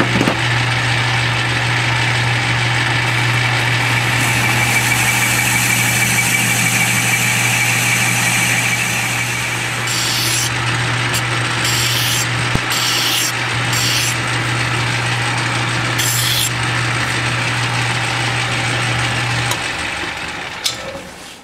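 Metal lathe running with a steady motor hum while the tool takes a turning cut on a cast cylinder head. About ten seconds in, a hand file is stroked against the spinning work, five rasping strokes, and near the end the motor stops and the lathe winds down.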